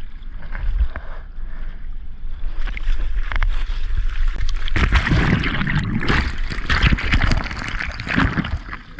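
Ocean water splashing and sloshing around a surfer on his board, with wind rumbling on the microphone; the splashing grows louder and busier from about three seconds in.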